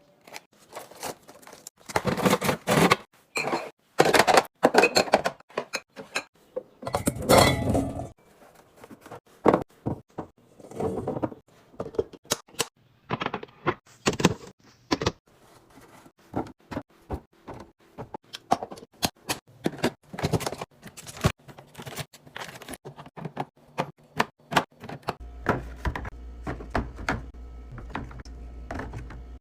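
Groceries and storage containers being handled and set down while restocking a fridge: many separate clacks, knocks and thunks, with longer rustling or scraping stretches about two, four and seven seconds in. Near the end a steady low hum sets in under the clacks.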